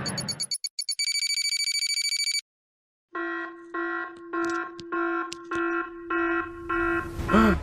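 Electronic alarm sound effect: a quick burst of high beeps and a steady high tone, then after a short silence a run of pitched alarm beeps at about two a second. A short sweep in pitch comes near the end.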